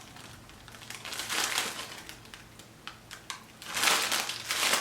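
Wrapping paper crinkling and rustling in bursts, with small crackles, as a monkey pulls at a loosely wrapped present. The loudest rustling comes near the end.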